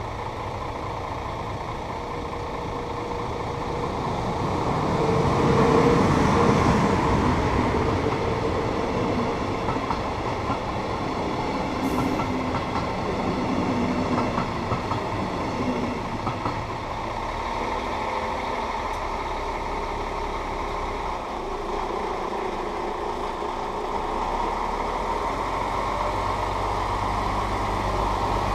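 A DB class 111 electric locomotive hauling double-deck coaches passes over the level crossing, its wheels running over the rails, loudest about six seconds in as the locomotive goes by. Near the end a low, steady engine rumble from a waiting lorry comes up.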